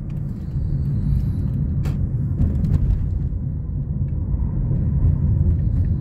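Steady low rumble of a car's engine and tyres on the road, heard from inside the moving car's cabin.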